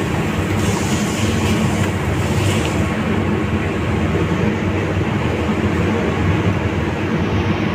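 Loud, steady mechanical drone of restaurant-kitchen machinery running throughout, with no change or break.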